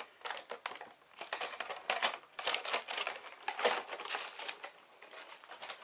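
Packaging being handled by hand, crinkling and rustling in irregular crackles throughout.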